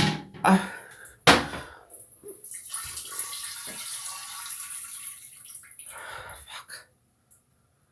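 A person sneezing: a few sharp breaths and a loud sneeze about a second in, then a long hissing breath lasting about four seconds.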